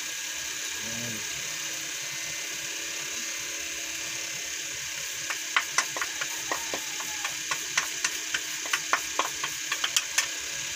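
A wooden spatula stirring coconut cream into a stew in a speckled granite-coated pan. From about halfway through it clicks and taps irregularly against the pan, a few times a second, over a steady hiss.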